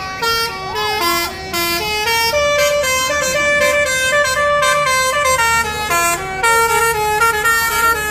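Indonesian bus 'telolet' horn, a Basuri multi-tone air horn, playing a tune of several tones at once that step from note to note, with the bus engine running low underneath.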